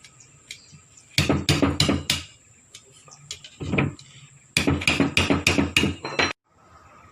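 Hammer blows on metal in two quick runs of strikes, about five a second, with a single blow between them. The sound cuts off abruptly near the end.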